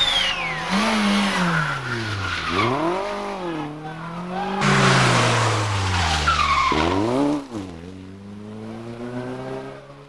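Rally cars at full effort, one after the other. Each engine's pitch drops sharply as it brakes and changes down, then climbs again as it accelerates away, and there is tyre squeal and skidding. The second car, an Opel Corsa rally car, takes over about halfway through.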